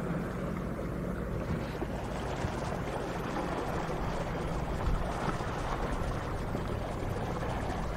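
An engine running steadily, with water rushing and pouring over it.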